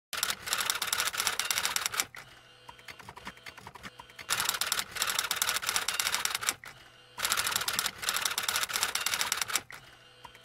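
Typing sound effect: rapid clicking of keys in three bursts of about two seconds each, with short pauses between them.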